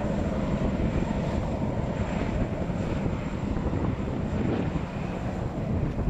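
Jet boat engine running steadily, a continuous rumble with a low hum.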